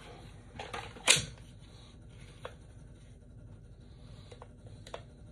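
Handling of a stripped-down Glock pistol's polymer frame: one sharp clack about a second in, then a few faint clicks and light rubbing.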